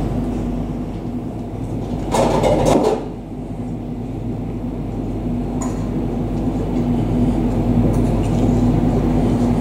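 ATR 72 turboprop engines running as the aircraft taxis: a steady drone with a low hum. A brief rush of noise about two seconds in.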